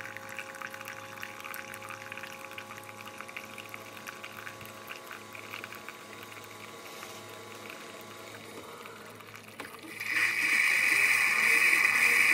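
Single-serve pod coffee maker brewing: coffee streams into a glass mug over a low pump hum. About ten seconds in, the sound turns to a much louder hiss.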